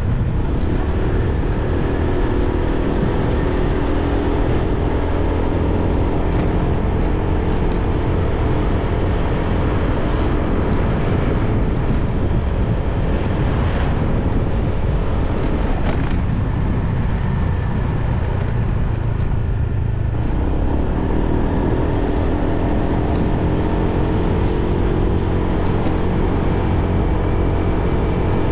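Motorbike engine running under way, its note fading for a few seconds past the middle and then coming back strongly, with a steady low wind rumble on the camera's microphone.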